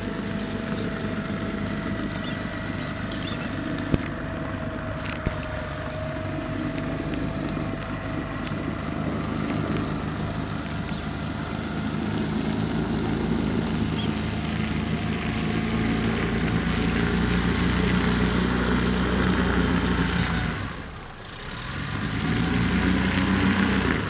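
Boat motor running steadily. It grows a little louder partway through, drops away briefly near the end and then picks up again.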